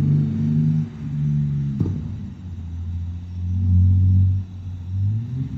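BMW 328i's N52 straight-six exhaust, through Active Autowerke headers and an aFe cat-back, accelerating hard. Its note drops and builds again twice, at about one second and about four and a half seconds, like gear changes. There is one sharp click just under two seconds in.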